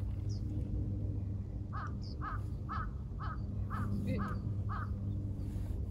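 A crow cawing seven times in a row, about two caws a second, over a steady low hum.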